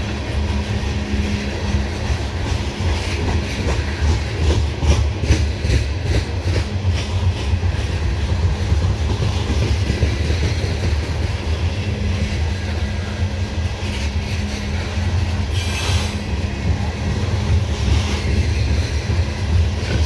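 Loaded CSX coal hopper cars rolling past: a steady low rumble of steel wheels on rail, with a rapid clatter of wheels over rail joints.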